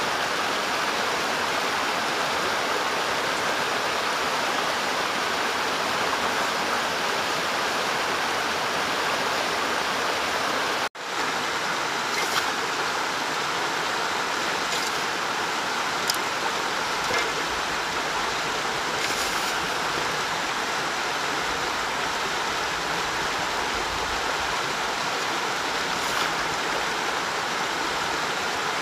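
Rushing creek water, a steady rush that drops out for a moment about a third of the way in, with a few faint clicks and crackles of dry clay lumps being crumbled by hand in a bucket.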